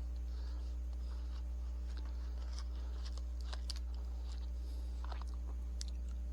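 Steady low electrical hum with scattered small clicks and crackles over it, as the frozen ice cream bar is handled before the first bite.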